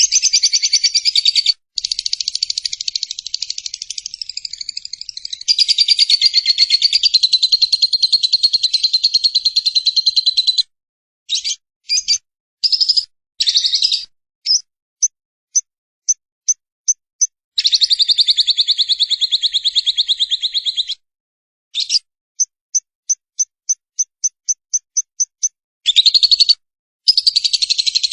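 Lovebird's long, rapid chattering trill (ngekek), broken by abrupt silent gaps and by runs of short, sharp, evenly spaced chirps at about four a second. This is the kind of song recording used to train songbirds.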